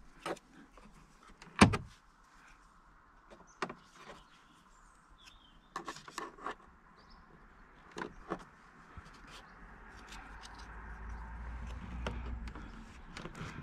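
Scattered clicks and knocks of a plastic trim lever prying at a Jaguar I-Pace's plastic interior side trim panel by the door opening, the loudest a sharp click about two seconds in. A low rumble builds near the end.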